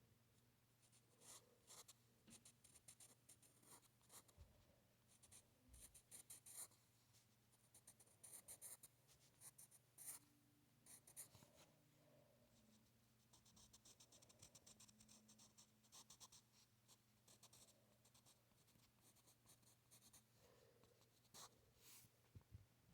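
Faint scratching of a drawing tool across paper in quick, short strokes and clusters of strokes, as a picture is sketched by hand, over a steady low hum.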